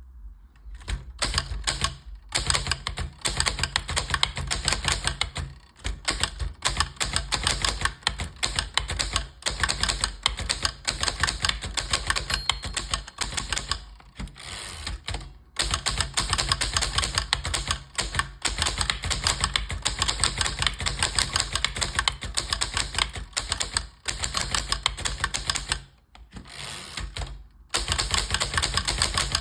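1928 Corona 4 portable typewriter being typed on: fast, continuous keystrokes clacking, with a few short pauses between runs of typing.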